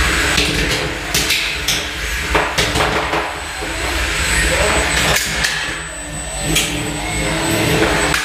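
Small radio-controlled combat robots clattering against each other and the arena walls: a string of sharp, irregular knocks, most packed into the first three seconds, over the steady whir of their motors.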